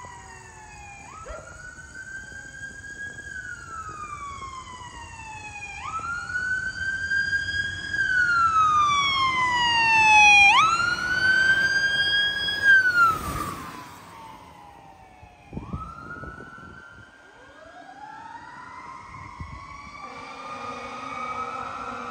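Fire engine siren wailing as the truck goes by: each cycle shoots up sharply in pitch and then slowly falls, repeated several times. It grows louder to a peak about two-thirds through, then drops in pitch and fades as the engine moves away.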